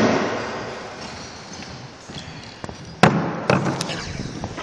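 A sharp knock that echoes around a squash court, then a few more knocks and bumps near the end as the camera is handled.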